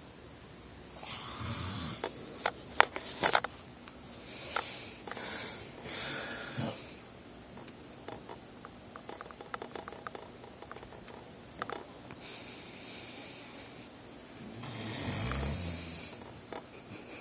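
A man snoring in his sleep: slow, noisy breaths a few seconds apart, some with a low rattle. A few sharp clicks come about three seconds in, the loudest sound here.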